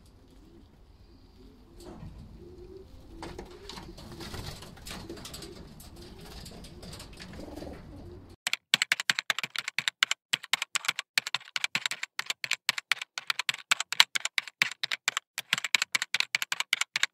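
Racing pigeons cooing in a loft, with some rustling. About eight seconds in this cuts off suddenly and gives way to a rapid, uneven run of keyboard-typing clicks, a typing sound effect.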